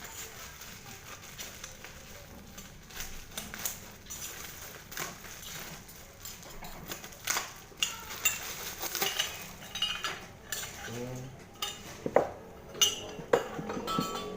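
Unboxing handling: packaging rustling and metal exhaust parts clinking and knocking against each other, the knocks growing louder and more frequent in the second half.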